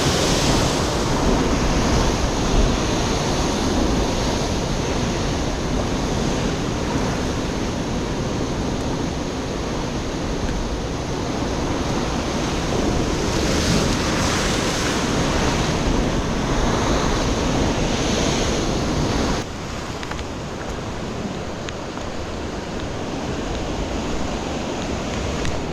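Ocean surf breaking on a rocky shore, a steady rushing with wind on the microphone, swelling louder twice and dropping suddenly to a lower level about three quarters of the way through.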